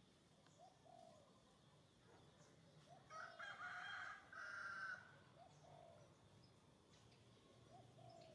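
Faint animal calls: a few short arched calls, and a louder two-part call lasting about two seconds from about three seconds in.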